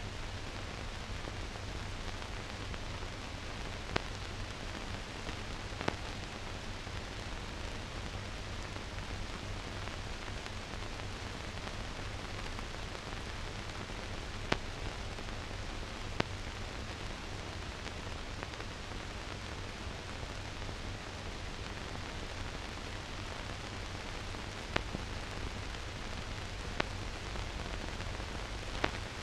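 Empty soundtrack of a silent newsreel transfer: steady hiss with a low hum underneath, broken by a handful of sharp clicks.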